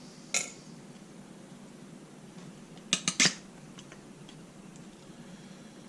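Small hard clicks of metal lock parts being handled while a pin-tumbler lock is taken apart: one click early, then a quick run of three louder clicks about three seconds in, and a few faint ticks after.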